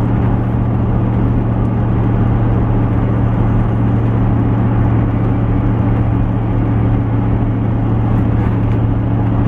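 Steady engine and road drone of a vehicle on the move, heard from inside the cabin, with a strong low hum under an even rush of road noise.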